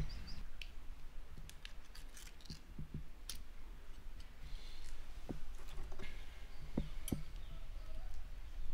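Small clicks and crinkling as the metal pull-tab lid of a small food tin is peeled back, then light clicks of eating from the tin, over a faint low hum.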